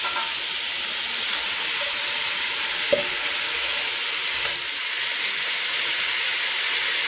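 Butter sizzling steadily as it melts and foams in a preheated pot, a high frying hiss. One brief click about three seconds in.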